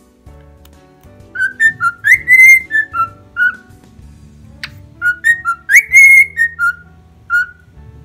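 Pet cockatiel whistling a short song of several notes twice, each phrase about two seconds long with a held high note in the middle, over soft background music.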